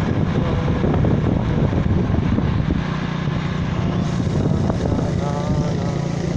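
Motorcycle engine running steadily while riding along a road, a constant hum under road and wind noise.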